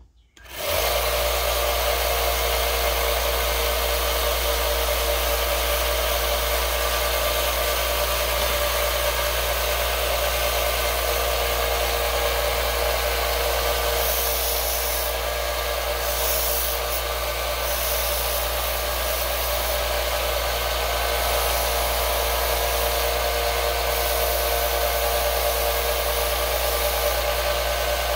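Small bench belt sander switched on about half a second in, its electric motor humming and the abrasive belt hissing steadily. The high hiss turns harsher in spells from about halfway through.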